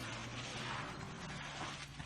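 African elephant giving a low, steady rumble that shifts up slightly in pitch about a second in, over a faint hiss.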